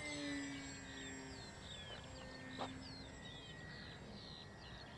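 Faint drone of a small RC flying wing's brushless electric motor and 8x6 propeller high overhead, wavering a little in pitch as the model flies. Birds chirp throughout with repeated short, falling calls.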